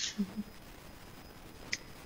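Pause in conversation: quiet room tone, with a brief low voice sound, like a short hum, just after the start and a single short click or hiss near the end.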